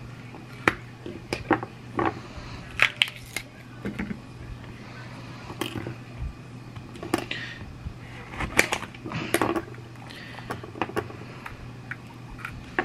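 Kitchen knife slicing mini sweet bell peppers on a cutting board: irregular crisp cuts and knocks of the blade on the board, over a low steady hum.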